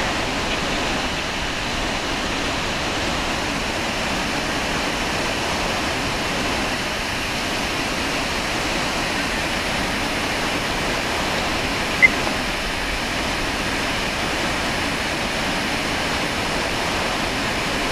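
Iguazu Falls heard from the brink: a steady, unbroken roar of huge volumes of water plunging over the edge. A single short high blip cuts through about two-thirds of the way in.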